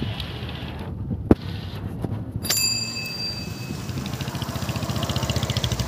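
A sharp click, then about a second later a single high, bright ding that rings out and fades over about a second. After it comes a fast, rhythmic rubbing noise that grows louder toward the end.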